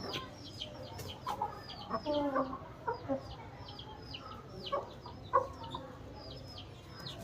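Aseel chickens clucking, with a few lower calls between about two and three seconds in and again around five seconds, one of them sharp and loud, over short high falling chirps that repeat about twice a second throughout.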